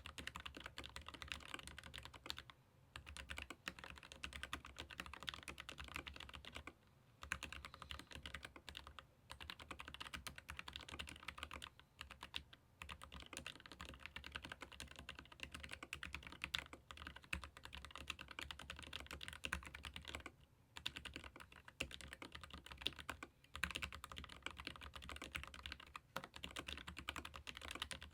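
Fast, continuous typing on a Keychron K15 Pro Max low-profile mechanical keyboard with hot-swappable Gateron low-profile red (linear) switches: a dense patter of keystrokes, broken by a few short pauses.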